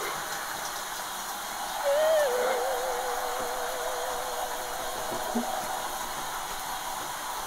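Soft background music: a single held note with vibrato comes in about two seconds in and slowly fades, over a steady hiss.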